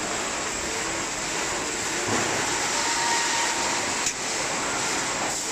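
Steady industrial machinery noise around a wire mesh welding line, with a faint whine in the middle and one sharp click about four seconds in.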